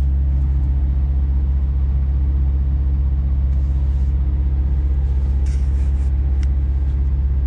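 Scania truck's diesel engine heard from inside the cab, a steady low drone with an even hum as the truck moves slowly at a constant speed.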